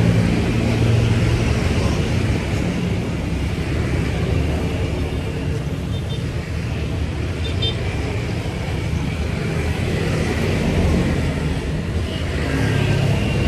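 Steady low rumble of a motor vehicle engine running, with road traffic noise.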